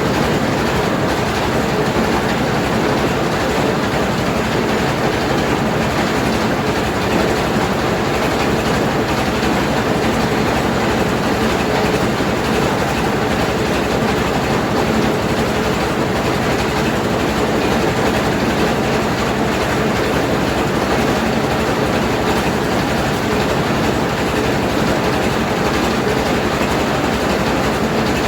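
Mobile rice mill running steadily under power: its engine and milling machinery make a loud, continuous rattling clatter.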